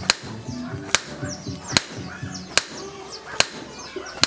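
Six sharp cracks at an even beat, about one every 0.85 seconds, each the loudest thing in turn, over a softer background of held tones.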